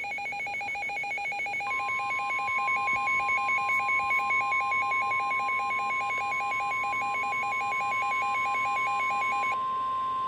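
Emergency Alert System alert tones. A rapidly pulsing two-tone alarm is joined about two seconds in by a steady single tone, and the steady tone carries on alone after the pulsing stops near the end.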